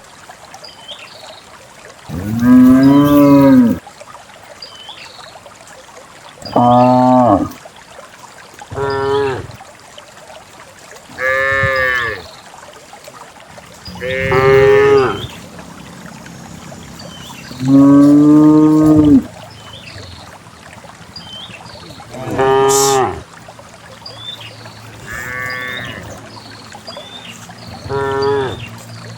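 Cows mooing over and over, about nine loud calls a few seconds apart, each lasting half a second to a second and a half and differing in pitch and length.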